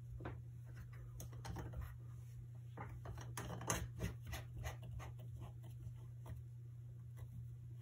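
Gooseneck arm of a tablet holder being bent into position by hand: a run of small scratchy clicks and creaks, loudest about three and a half seconds in and dying away after about five seconds, over a steady low hum.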